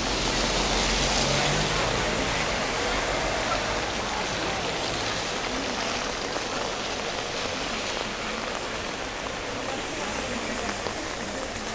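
Heavy rain falling steadily, an even hiss of rain on the ground.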